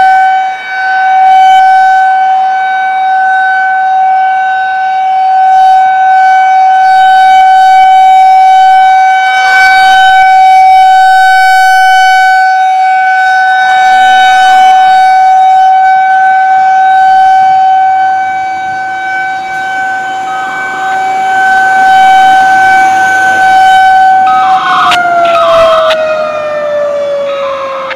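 Federal Signal 2001-130 rotating electromechanical civil-defense siren sounding a steady single-tone alert, its loudness swelling and dipping. Near the end the tone begins to slide down in pitch as the siren winds down.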